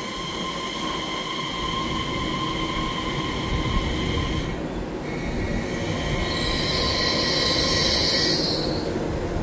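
TRA EMU3000 twelve-car electric express train moving along the station platform, its running gear giving a rumble under several steady high-pitched squealing tones. About halfway through the tones shift to a new set, which grows louder and then fades near the end.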